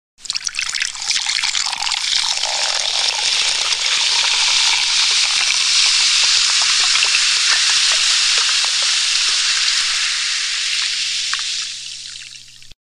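Carbonated drink fizzing: a steady hiss of bubbles with many tiny pops, starting suddenly and fading out near the end.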